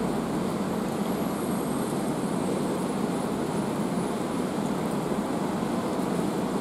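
Steady city rain: a continuous, even wash of noise, heaviest low in pitch, with a faint thin high whine from about a second in to past the middle.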